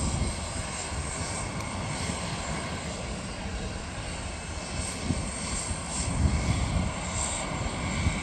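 Boeing 747 under tow behind a Douglas aircraft tug: a steady faint high whine over an uneven low rumble that swells now and then.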